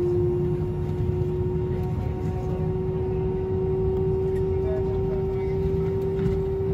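Airbus A319 cabin noise at the gate: a steady whine whose pitch creeps slowly upward, over a continuous low rumble from the aircraft's running engines and air systems.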